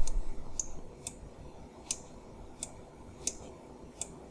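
Computer mouse buttons clicking, about seven sharp clicks at a slightly uneven pace, roughly one every two-thirds of a second.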